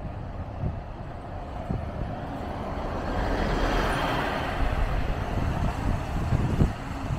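Scania Castrosua New City city bus driving past close by. Its engine and tyre noise swell as it passes about four seconds in, then ease off as it pulls away.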